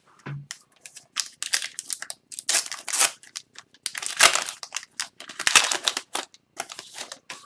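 Foil hockey-card pack wrappers crinkling and tearing as packs are ripped open by hand, in irregular bursts with the loudest rips about two and a half, four and five and a half seconds in.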